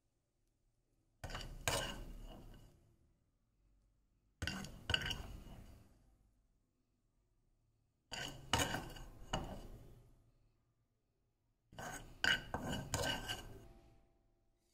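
A metal serving spoon clinking and scraping against steel cookware and dishes as food is served out. It comes in four short bursts of clatter with ringing, separated by near-silent gaps.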